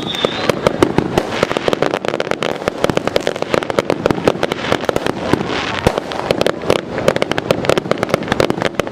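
Fireworks display: a rapid, continuous barrage of bangs and crackling reports, several a second, with no pause.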